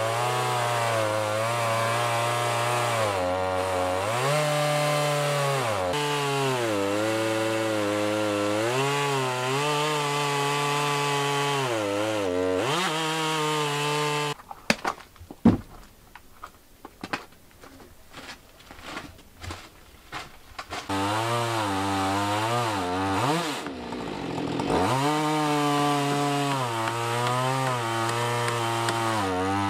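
Chainsaw on an Alaskan chainsaw mill running at full throttle while ripping a log lengthwise into a board, its pitch sagging now and then under load. About halfway through the saw drops out, leaving several seconds of scattered knocks and taps. The saw then comes back and cuts again, dipping in pitch once before steadying.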